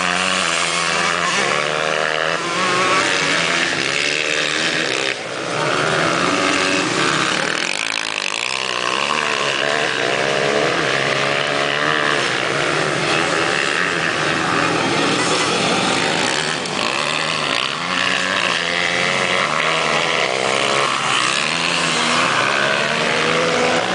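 Several motocross bikes racing together, their engines overlapping and revving up and down as they accelerate through the track.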